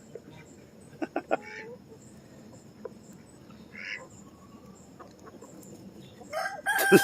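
Chickens clucking a few short times about a second in, then a rooster starts a long, steady crow near the end.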